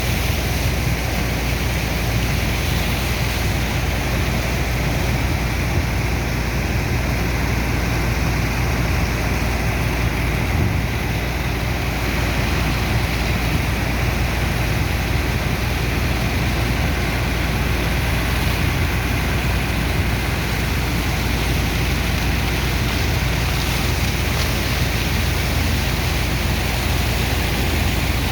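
Sand dredger's pump engine running with a steady heavy drone, mixed with the even rush of a sand-and-water slurry pouring out.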